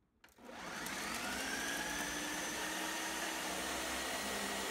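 A Ninja countertop blender's motor switching on about a quarter second in, rising in pitch for about a second, then running at a steady high whine as it chops a pitcher packed with chunks of zucchini and onion.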